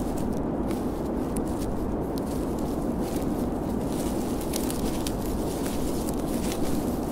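Steady low background noise, even in level, with faint scattered clicks and crackles over it.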